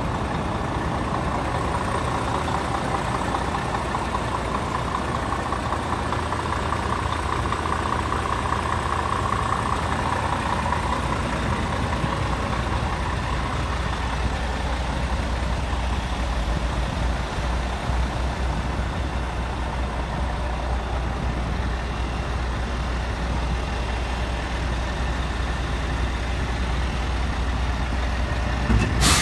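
Scania R440 truck's 13-litre straight-six diesel idling with a steady low hum. A brief sharp noise comes right at the end.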